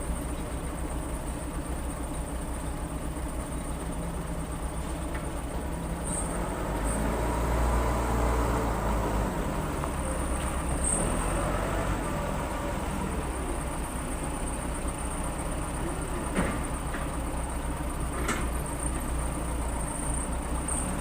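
Case 580 Super L backhoe loader's diesel engine running, pulling harder for several seconds in the middle as the hydraulics work. Two sharp knocks come near the end.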